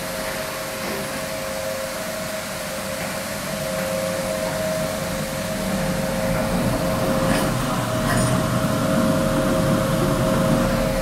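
Automated rug washing machine running at increased speed: a steady mechanical rush with a two-note whine, and a lower rumble that grows louder from about four seconds in.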